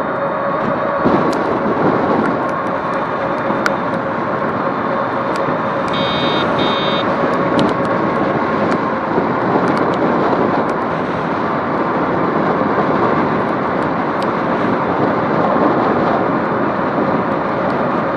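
Steady rushing wind and road noise while riding an electric bike, with a faint steady whine underneath. Two short high beeps sound about six seconds in.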